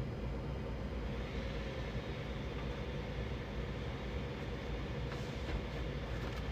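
Bambu Lab A1 Mini 3D printer running a print: a steady hum of its fans and stepper motors, with a brighter whir joining about a second in.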